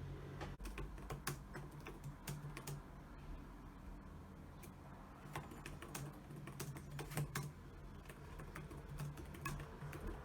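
Typing on a computer keyboard: irregular bursts of key clicks with short pauses, over a faint steady low hum.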